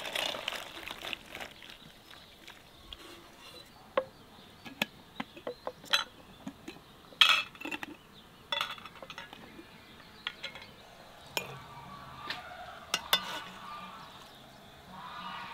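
Soaked morels tipped out into a metal strainer with a short wet rustle, then glass jars clinking and knocking on a wooden table as they are handled and packed with the mushrooms: a dozen or so sharp, separate clinks.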